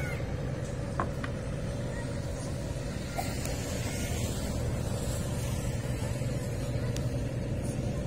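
A motor engine running with a steady low drone, with a couple of light knocks and a brief hiss about halfway through.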